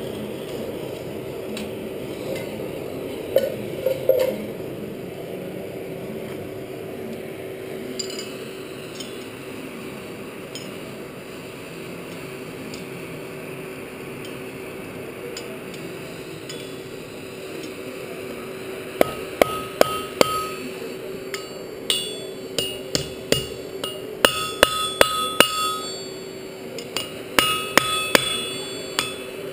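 Steady hum of a coal forge's air blower. About two-thirds of the way in, hammer blows begin on a hot rivet against the anvil: sharp, ringing strikes in quick clusters, peening the rivet to set the joint of a pair of blacksmith's tongs.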